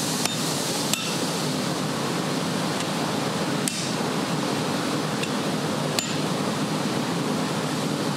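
About four sharp metallic clinks of steel on the anvil and its hardy tool, spread out and each ringing briefly, over a steady rushing noise.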